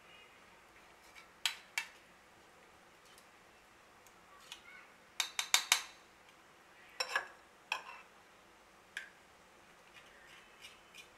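Perforated metal ladle (jhara) being tapped over a wok of hot oil to drop besan batter through as boondi: scattered sharp metal clinks, with a quick run of four about five seconds in.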